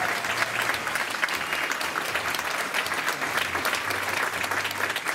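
Audience applauding steadily, a dense even clapping from a large crowd.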